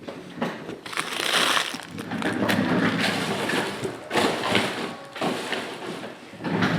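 Plastic wrappers and card packaging crinkling and crackling as they are handled, in a run of short, irregular rustles.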